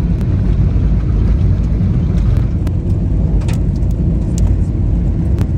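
Car driving on a rough gravel road: a steady, loud low rumble of tyres and engine, with a few faint ticks scattered through it.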